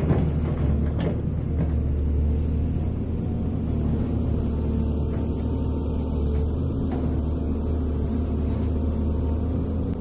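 Hydraulic excavator's diesel engine running steadily, with a few sharp knocks in the first two seconds.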